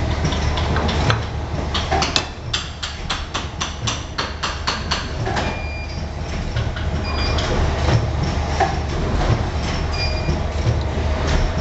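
Steady low machinery hum in a workshop, with a quick run of sharp metallic clicks, about four a second, for a few seconds near the start, and a few brief high squeaks or beeps later on.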